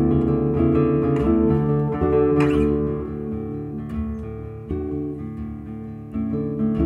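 Soundtrack music: an acoustic guitar playing plucked notes that ring on and change every half second or so, softer in the middle and swelling again near the end.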